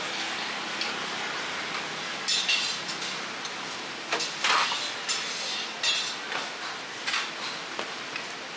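Cleaver chopping through a crisp pan-fried scallion pancake onto a wooden board: several sharp, crunchy strikes a second or so apart, the loudest about four and a half seconds in, over a steady hiss.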